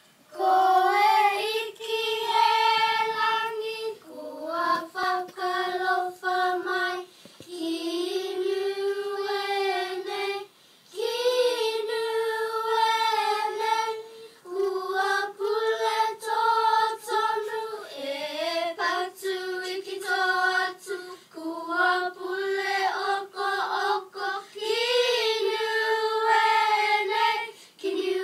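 Children singing a song in high voices, phrase after phrase of held notes with short breaths between them.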